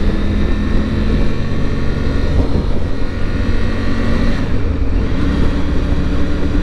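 Motorcycle engine running at road speed, heard from a helmet-mounted camera with heavy wind and road noise over it. Its steady note breaks off about four and a half seconds in and comes back at a different pitch.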